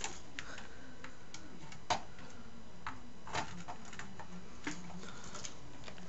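A few light clicks and taps from a CPU cooler and motherboard being handled as the cooler's mounting screws are set into the board's holes, the sharpest about two seconds in, over a steady low hum.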